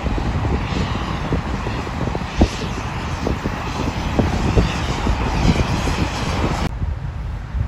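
Wind buffeting the microphone over a steady outdoor rumble of engines or traffic. Near the end the sound cuts abruptly to a duller rumble.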